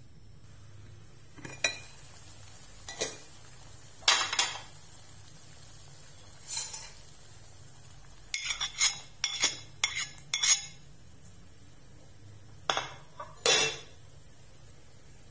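Kitchenware clinking and knocking against an aluminium cooking pot: lid and plate striking the pot in separate clinks every second or two, with a quick run of clinks a little past the middle and two louder strikes near the end.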